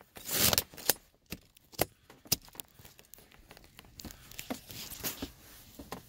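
Rustling and sharp plastic clicks from handling wiring harness connectors and dash plastics under the dashboard: a short rustle at the start, then several crisp clicks over the next two seconds and lighter scattered ticking after.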